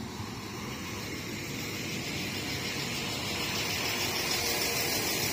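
Northern Ireland Railways Class 4000 diesel multiple unit running past along the platform: a steady noise of wheels on rails and underfloor diesel engine that grows steadily louder as the train draws alongside.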